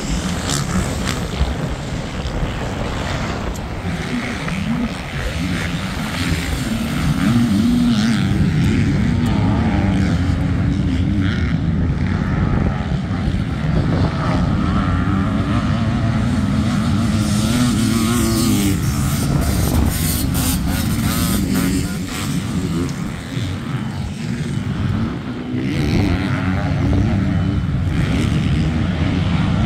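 Several four-stroke motocross bikes revving on a dirt track, engine pitch rising and falling as riders accelerate, shift and back off. The sound grows louder about seven seconds in.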